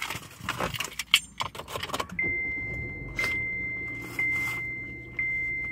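Keys jangling and clicking, then a car's warning chime dinging about once a second, each ding a single high tone that starts sharply and fades.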